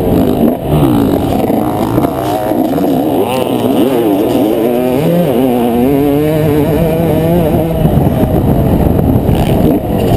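Yamaha motocross bike's engine racing on a dirt track, its pitch rising and falling over and over as the throttle is opened and closed.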